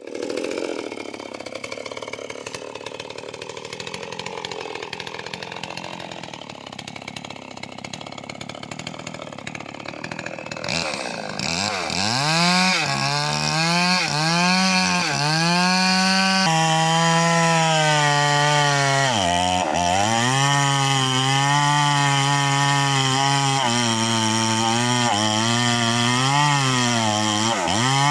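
Eagles 6620 two-stroke chainsaw running at high revs. From about ten seconds in, its pitch dips and recovers again and again as it cuts into the wood under load. Before that there is a rougher, unpitched noise at a lower level.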